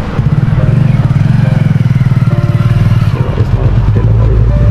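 Small commuter motorcycle engine running close by, a steady fast putter.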